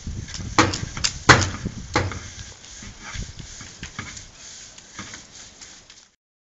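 Brush head of a water-fed pole scrubbing and knocking against profiled metal wall cladding: several sharp knocks in the first two seconds, then lighter taps, cutting off about six seconds in.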